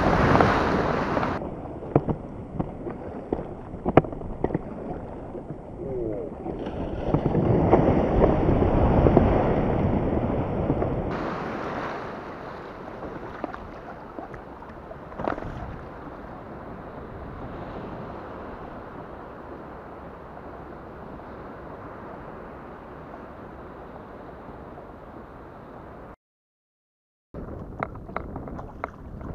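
Surf breaking over and around a sit-on-top fishing kayak: loud rushing and splashing water around the first second and again from about 7 to 11 seconds, with scattered sharp knocks. It then settles to a quieter steady rush of water. The sound cuts out for about a second near the end.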